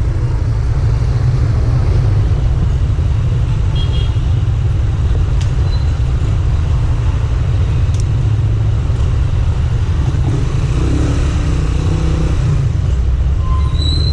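Motorcycle engines running at low speed, a steady low rumble, as a group of motorcycles rolls off a fuel station forecourt.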